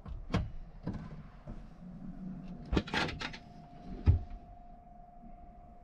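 Camper van cupboard doors being opened and handled: a series of short clicks and knocks from the latches and doors, a cluster of them about three seconds in and one louder knock about four seconds in.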